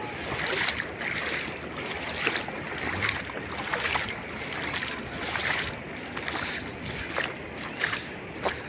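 Sea surf and wind buffeting the microphone, with irregular short knocks scattered through.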